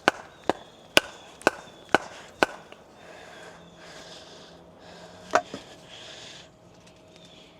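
Sharp knocks about two a second, six in a row, then one more loud one after a pause: a rock pounding on an axe driven into a log to split it. Faint rustling between the knocks.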